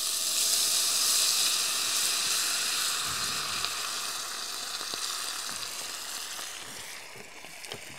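Vegetable broth poured into a hot cast-iron Dutch oven, just used for searing pork chops, sizzling and hissing into steam as it hits the pan. It starts suddenly, is loudest in the first couple of seconds, then slowly dies down.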